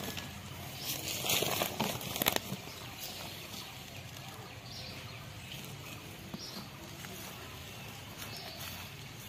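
Hands scraping and pressing loose soil and compost around a young areca palm seedling: a few rustling scrapes with small crunches in the first couple of seconds, then only faint outdoor background.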